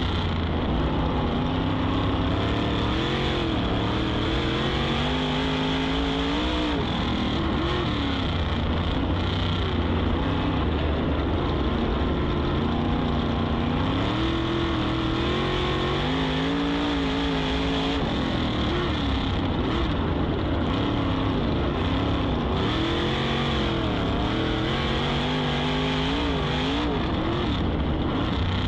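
410 sprint car's 410-cubic-inch V8 at racing speed on a dirt oval, heard from inside the cockpit. The engine note climbs and falls over and over as the driver goes on and off the throttle through the laps, over a steady rush of noise.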